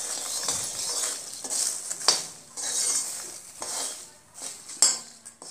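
A steel spoon scraping and clinking against a wok as it stirs puffed lotus seeds (makhana) roasting in ghee. Two sharper knocks stand out, one about two seconds in and one near the end.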